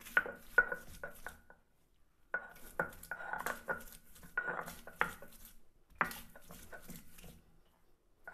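Garlic cloves being crushed and ground with a stone roller (batta) on a stone slab (sil): knocking and scraping strokes of stone on stone. They come in three bouts, pausing about one and a half seconds in and again near six seconds.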